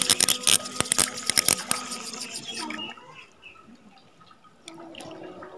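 A hooked tilapia splashing and thrashing at the water's surface as it is reeled in, a quick irregular run of splashes that dies away about halfway through as the fish is lifted clear of the water.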